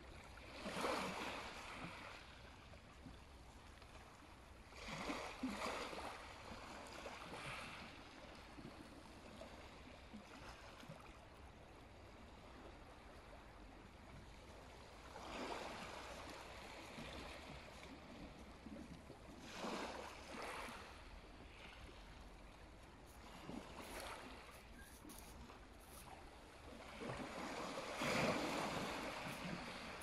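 Small sea waves lapping and washing in at uneven intervals of a few seconds, soft surges over a faint steady hiss, the largest near the end.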